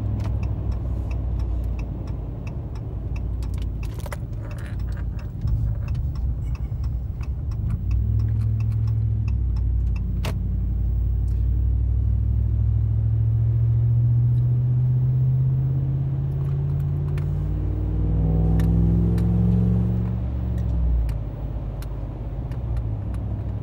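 Ram 1500's 5.7-litre Hemi V8 running through aftermarket Carven Competitor mufflers while the truck is driven: a steady low drone, then from about eight seconds in a long, gradual acceleration with the pitch climbing, which drops away about twenty seconds in as the throttle is let off. Light rattling clicks sound throughout.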